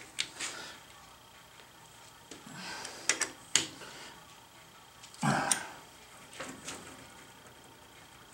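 Hand tools handled on a metal lathe cross-slide: a hex key clinking and knocking against steel parts, a few sharp clicks with short scraping rattles between them.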